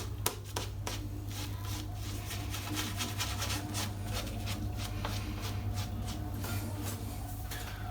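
Soft shaving brush working lather onto a stubbled scalp: a quick run of short, irregular bristly rubbing strokes, over a steady low hum.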